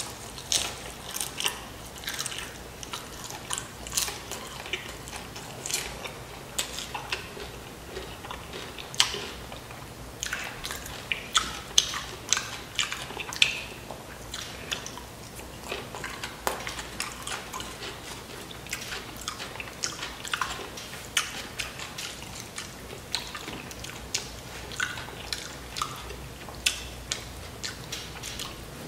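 Close-up chewing and crunching of loaded Flamin' Hot Doritos nachos: crisp snaps of the chips and wet mouth sounds, coming irregularly several times a second.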